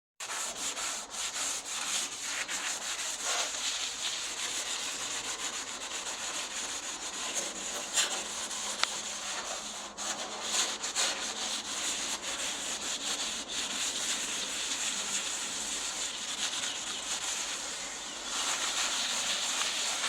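Sandpaper rubbing on the steel of a car's engine bay in quick, uneven strokes, smoothing the surface to prepare it for paint.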